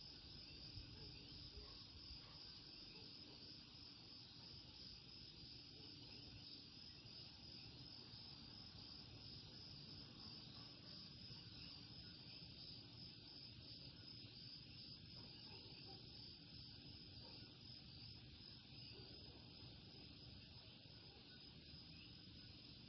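Faint chorus of Puerto Rican coquí frogs calling over a steady high trill of insects.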